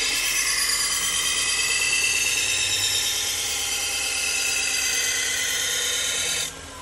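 AMK-75 belt sharpener running a 200-grit 3M Trizact belt, grinding the edge of a Shun kitchen knife: a steady hissing grind with a high whine. It cuts off sharply near the end, and the motor's whine begins to fall as the belt winds down.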